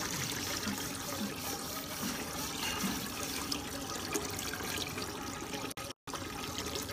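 Clean water running steadily from a hose into a homebrew boil kettle as it is rinsed out. The sound cuts out for a moment near the end.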